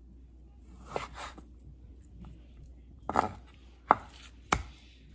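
A chef's knife cutting raw lamb into chunks on a wooden cutting board. The blade knocks on the board a few separate times: once about a second in, then in a quick cluster around three seconds in, and twice more toward the end, the last knock the sharpest.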